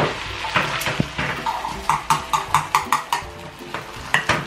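Chopsticks clicking and scraping against a nonstick frying pan while beaten egg is stirred, with a quick run of light taps in the middle.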